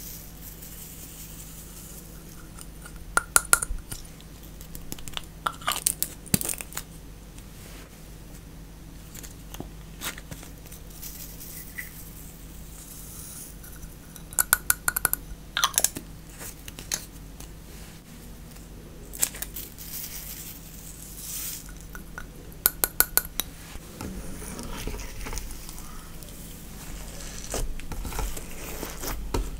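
Slime being stretched, pressed and folded by hand, giving clusters of sharp pops and crackles every few seconds. A faint steady hum runs underneath.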